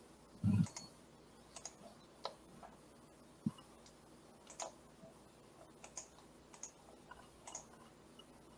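Faint, irregular computer mouse and keyboard clicks, a dozen or so spread over several seconds, as a screen share is set up. A short low thump comes about half a second in.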